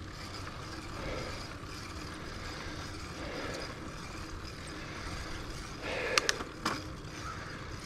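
Bicycle riding along an asphalt road: a steady rush of tyre and wind noise, with a quick cluster of sharp clicks about six seconds in.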